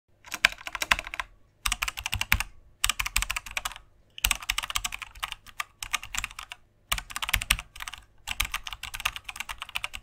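Keyboard typing clicks, keys struck rapidly in about seven short runs separated by brief pauses, as a typing sound effect for text appearing on screen.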